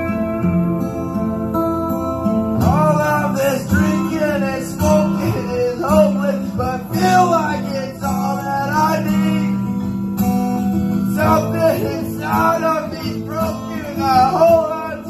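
A man singing karaoke through a microphone over a guitar-led backing track. The first couple of seconds are instrumental before his voice comes in.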